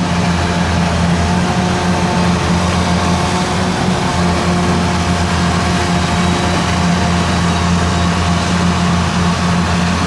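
Kubota DC93 combine harvester's diesel engine and threshing machinery running steadily under load while it cuts rice in boggy mud, a constant low drone.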